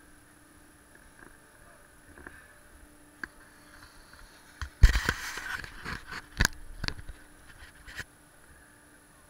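A snowboard scraping over packed snow close to the camera, starting suddenly about halfway through, with several sharp knocks over the next three seconds.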